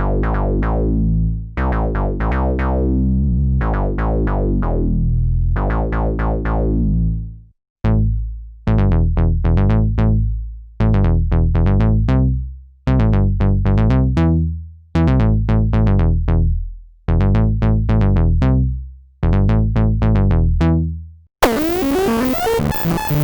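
Novation Bass Station II analog synthesizer playing deep bass notes whose brightness dies away quickly after each note. About eight seconds in, the line thins to separate notes in pairs, and near the end it switches abruptly to a dense, bright, noisy sound.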